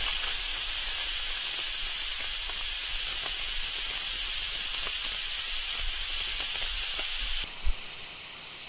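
Instant Pot Duo Nova pressure cooker venting steam through its steam release valve on quick pressure release: a loud, steady hiss. About seven and a half seconds in it drops suddenly to a much quieter hiss, with a brief click just after.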